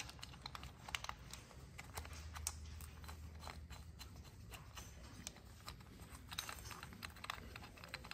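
Faint, irregular light clicks and taps of metal parts being handled by hand as a timing chain guide and its bolts are set in place on a GM 3.6L V6.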